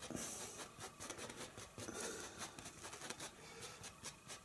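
Faint scratchy scrubbing of a stiff bristle brush working thick, dry oil paint into canvas with short strokes, heard as a brief pass at the start and another about two seconds in.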